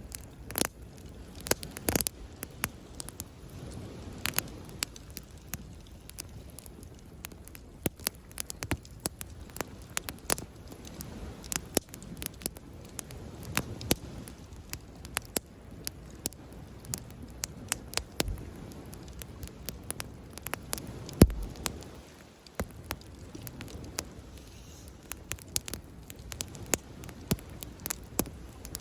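Wood campfire crackling, with frequent sharp pops and snaps, over a low, swelling wash of sea waves. One louder pop comes about two thirds of the way through.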